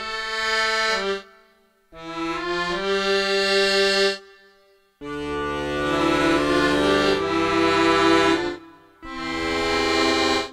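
Sampled accordion from the EastWest Gypsy virtual instrument (a double-reed patch) playing held chords in four short phrases, with brief gaps between them.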